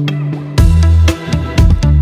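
Background music: a sparse melodic line, joined about half a second in by a heavy bass and a drum beat.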